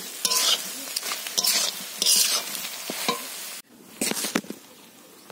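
Metal spatula stirring thick, sticky jujube pickle that is sizzling in a pan, with repeated scraping strokes against the pan. About two-thirds of the way in the sound drops off suddenly, leaving quieter sizzling and a few clicks.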